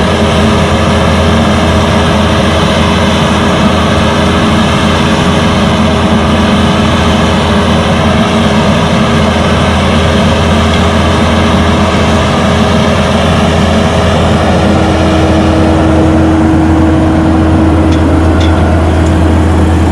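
Kubota skid steer's diesel engine running steadily at working speed while it drives a Harley rake through topsoil. A steady higher tone over the engine grows louder in the last few seconds.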